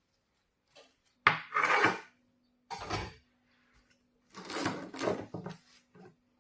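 A few short scraping and knocking handling sounds, the first the loudest and sharpest, over a steady low hum that starts about a second in.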